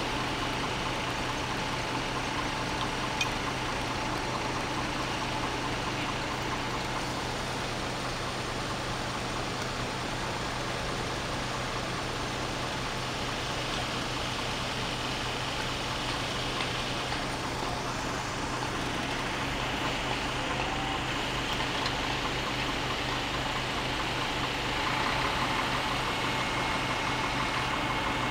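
Diesel engine of a fire engine idling steadily with a constant low hum, a little louder near the end.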